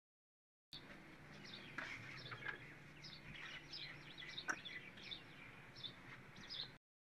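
Faint small birds chirping over a low steady hum, with a few light clicks of hand tools on the engine's valve gear. The sound drops out to silence for the first moment and again just before the end.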